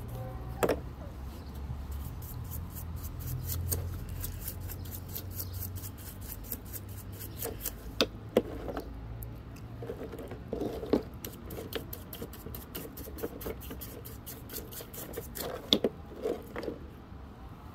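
A bristle brush scrubbing wet, muddy rock in a shallow tub of water, making a dense, rapid scratching, with a few sharp clicks of stone knocking on stone.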